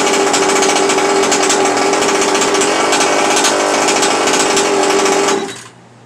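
Small nitro RC engine running at a steady buzz, then cut off abruptly about five and a half seconds in by the newly fitted kill switch.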